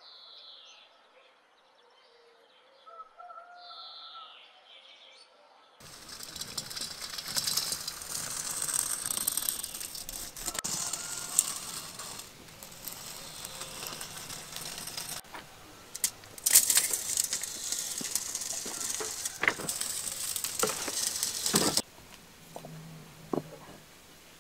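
Birds chirping for about the first six seconds. Then a loud, even hiss with scattered sharp clicks and knocks runs for about sixteen seconds and cuts off suddenly. Near the end come a few light clacks of firebricks being set down on a concrete slab.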